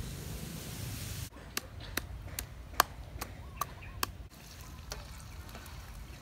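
Wooden pestle pounding in a clay mortar: about seven sharp knocks, roughly two and a half a second, in the middle of the stretch, with quieter outdoor background noise before and after.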